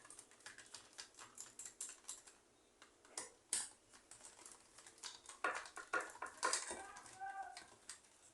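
Light clicks and taps of a small electric fan's plastic protective housing being handled and taken off, a scatter of small ticks with a denser run of louder clicks about five and a half seconds in.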